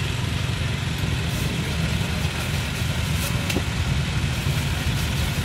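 Steady low engine rumble, with a few faint clicks.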